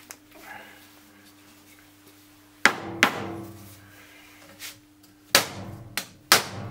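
Soft-faced mallet striking a dented, plastic-coated folded sheet-steel instrument cover (HP 3310B) over a wooden block to straighten it. There are five blows, each with a short ring from the panel: two close together about two and a half seconds in, then three more near the end.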